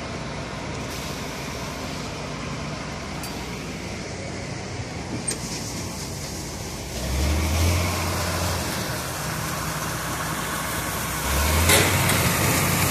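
Rice combine harvester's engine running steadily, with a deep hum that swells louder about seven seconds in and again near the end.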